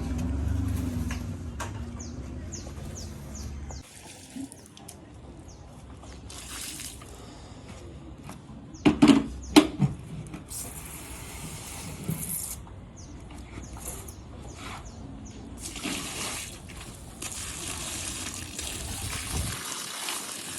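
Water running and splashing on a rug being washed, with hiss that comes and goes, and a few loud sharp knocks about nine seconds in.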